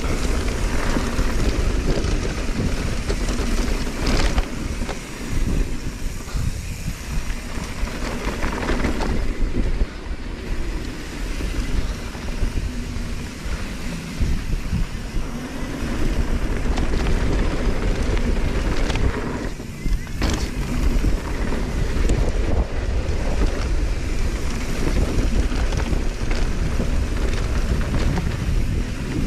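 Wind rumbling over the microphone and tyres rolling over dirt and rocks as a mountain bike descends a trail, with a few sharp clatters from the bike along the way.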